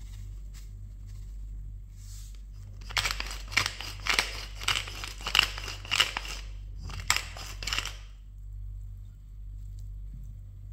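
Wooden pepper mill twisted by hand to grind black pepper, a run of crisp crunching turns at about two a second, starting about three seconds in and lasting some five seconds.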